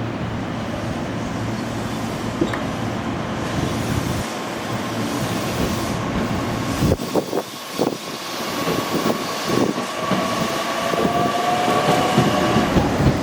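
E501 series electric train running on the rails, a steady rumble giving way to wheel clicks over rail joints. A steady high whine joins about two seconds in, with a second, lower tone rising slightly near the end.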